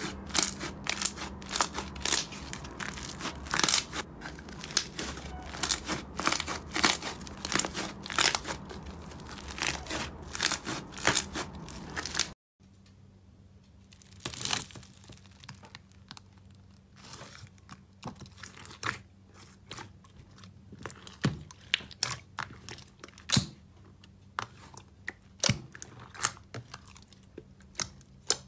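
Hands squeezing and stretching slime in a plastic tub, with quick, dense crackling clicks and pops as the slime is pressed. About twelve seconds in it cuts off sharply, and then sparser, fainter clicks follow as a hand presses into a tub of foam beads and kneads a pink slime full of beads.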